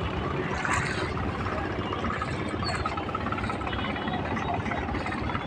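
A small boat's engine running steadily.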